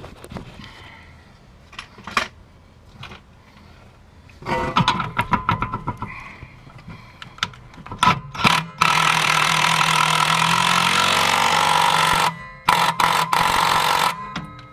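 Metal clicking and clattering as a bolt is fitted into the shock mount. Then a power tool drives the shock-mounting bolt home: one loud run of about three seconds, followed by several short bursts.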